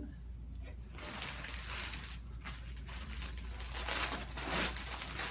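Plastic packaging crinkling and rustling as it is handled and pulled open, loudest near the end.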